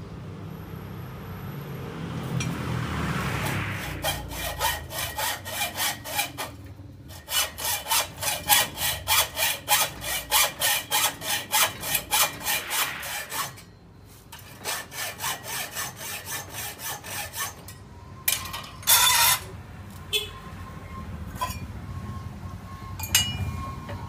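Hacksaw cutting a motorcycle exhaust pipe clamped in a vise, in steady strokes about two a second, with a short break in the middle. Near the end the sawing stops and there is a brief loud clank followed by light metallic clinks.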